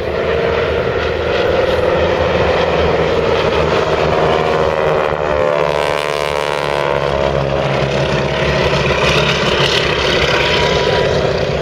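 Propeller biplanes of the Breitling Wingwalkers team flying past low, their radial engines running loud and steady. The sound sweeps through its closest pass about halfway through.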